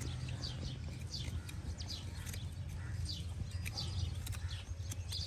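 Small birds chirping in short, falling chirps, one or two a second, over a steady low hum. A few sharp clicks come from a blade prying at an old iron horseshoe on a horse's hoof.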